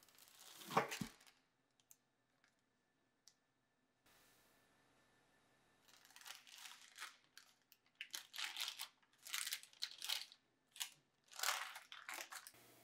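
A scrape ending in a knock about a second in as the loaf is lifted out of its metal baking pan, then parchment paper rustling and crinkling in a series of short bursts as it is handled around the loaf.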